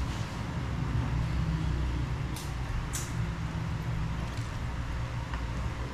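A steady low hum under a few light clinks of a spoon against a dish, two of them about half a second apart near the middle.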